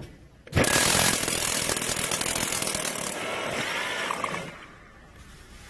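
Power drill driving a long insulation hole saw into a steel-faced insulated sandwich panel. It starts about half a second in, cuts loudest for the first few seconds, runs a little lower, then stops about four and a half seconds in.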